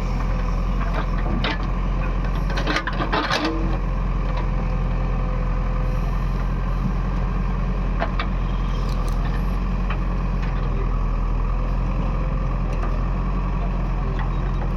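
A large engine running steadily at an even speed, with a cluster of sharp knocks and clatter about three seconds in and a few single knocks later.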